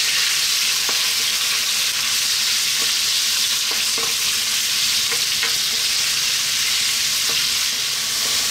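Strips of pork loin sizzling in hot oil in a wok, a steady frying hiss, with a few light taps and scrapes from a wooden spatula stirring them.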